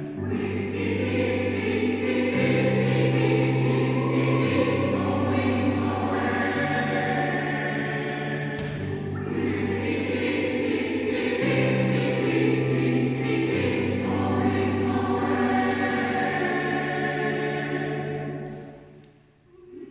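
Choir singing in harmony over sustained low bass notes, the phrase dying away near the end.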